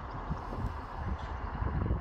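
Wind buffeting the microphone in irregular gusts, over a steady distant rumble.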